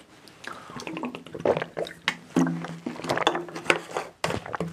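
A whiteboard being cleaned: liquid squirted from a spray bottle and the board wiped in short rubbing strokes.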